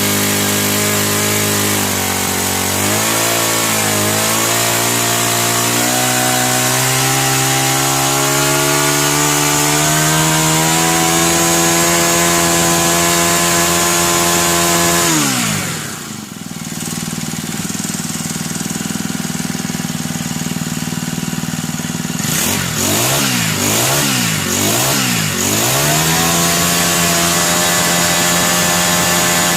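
Four-stroke brush cutter engine running and being throttled: the revs rise and hold high, drop back to idle about halfway, then it is blipped quickly several times before settling at a steady speed near the end. It revs up cleanly, a sign that the serviced engine is running properly with strong throttle pickup.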